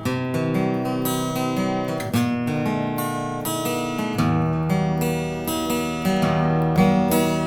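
Bellame W-180 acoustic guitar being strummed, its chords ringing on and changing about every two seconds.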